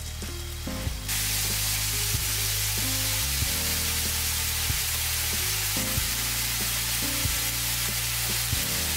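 Ground chicken sizzling as it fries in sesame oil in a non-stick frying pan, the sizzle jumping much louder about a second in and then holding steady. Background music with a steady low bassline plays throughout.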